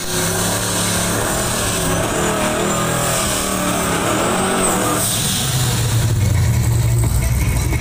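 Drag-racing pickup truck's engine revving with a wavering pitch at the start line. About five seconds in the sound changes abruptly to a louder, steady full-throttle run as the truck launches down the strip.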